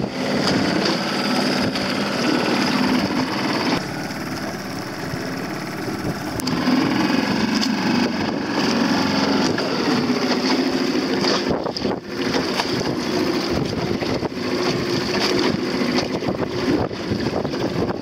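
Outboard motor running steadily on a small motorboat under way, towing a dinghy through choppy water, with strong wind buffeting the microphone. The engine note eases off for a couple of seconds about four seconds in.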